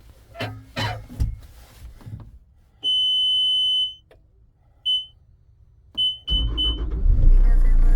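Bobcat T75 skid steer's cab warning beeper going through its key-on check: one beep lasting about a second, a single short beep, then three quick beeps. The diesel engine then cranks and starts near the end, settling into a steady run. A few knocks come in the first second or so.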